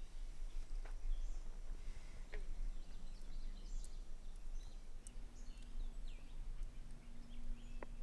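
Outdoor ambience: several birds chirping and calling in short scattered notes over a constant low rumble, with a few faint clicks.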